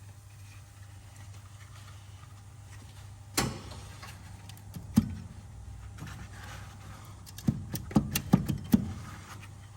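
Sharp knocks and clicks: one about a third of the way in, another about halfway, then a quick run of about seven near the end, over a steady low hum.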